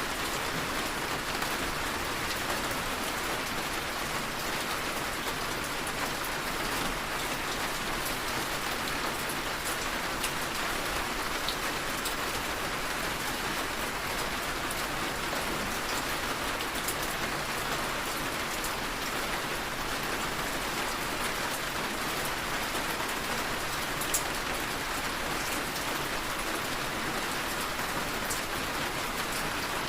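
Steady rain falling and pattering on a surface, an even hiss with scattered drop ticks and one slightly louder tick about 24 seconds in.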